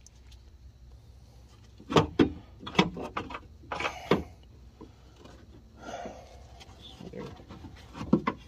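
Sharp metallic knocks and rattles come in clusters as metal parts are worked by hand inside a car door, loosening the old, broken window regulator. The busiest stretch runs from about two to four seconds in, with a few more knocks near the end.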